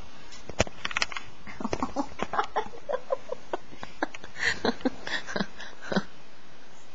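Handling noise from the camera rubbing against hair and skin: an irregular run of short clicks, rustles and brief squeaks that stops about a second before the end.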